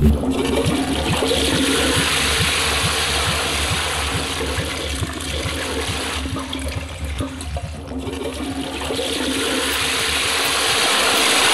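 Toilet flushing: water rushing and swirling in the bowl. It eases briefly about two-thirds of the way through, then swells again near the end.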